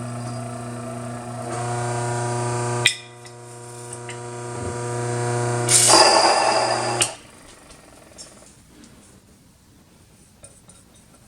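Mockmill 100 electric stone grain mill running as it grinds grain on a fine setting: a steady motor hum with a sharp click about three seconds in, growing louder with a rush of grinding noise, then switched off about seven seconds in.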